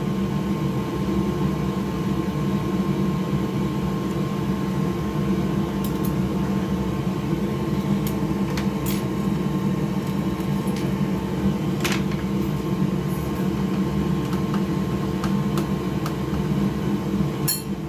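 Steady mechanical hum of a motor running, with a few light clicks and taps of console parts being handled about six, nine and twelve seconds in and near the end.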